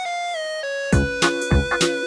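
Background music: a held electronic keyboard note that steps down in pitch, then a steady beat coming in about halfway through.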